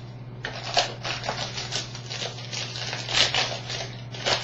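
Baseball trading cards being handled and flicked through, a quick irregular run of papery rustles and card-on-card slides, over a steady low electrical hum.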